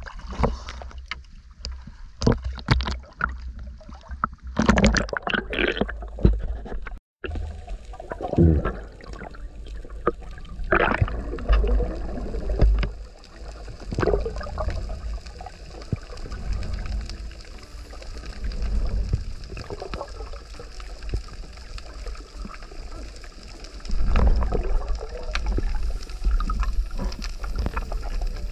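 A few scattered knocks and handling sounds, then an abrupt cut about seven seconds in. After the cut comes muffled sloshing and gurgling of water, heard from an underwater camera.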